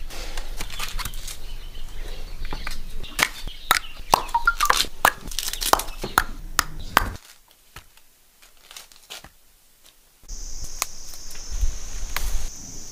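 Fresh bamboo shoots being husked by knife and hand: a dense run of sharp crackling snaps and tearing as the husk layers split and are stripped away. It stops about seven seconds in; after a near-silent pause, a steady high-pitched buzz sets in near the end.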